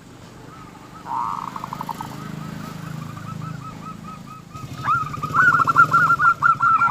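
Zebra dove (perkutut) calling: a series of short, evenly spaced cooing notes broken by rapid rattling trills (the 'kerok'), with a louder trill starting about five seconds in. A low engine hum comes in underneath during the second half.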